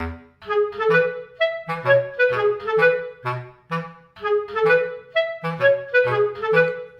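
Background music: a light woodwind melody in short, separated notes over a bass line.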